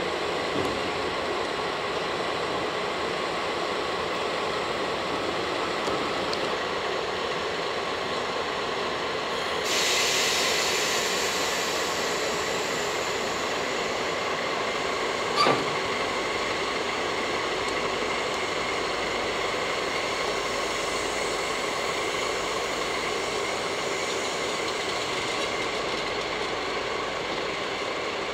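DD51 diesel-hydraulic locomotive running steadily at low speed as it hauls rail-carrying flatcars past. A louder hiss comes in for a couple of seconds about ten seconds in, and a single sharp knock sounds about halfway through.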